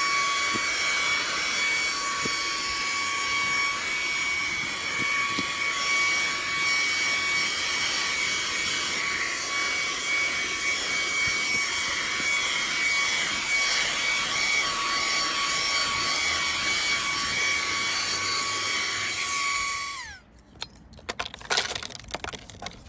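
Cordless handheld mini vacuum cleaner running with a steady high whine, switched off near the end and winding down with a falling pitch, followed by a few clicks of handling.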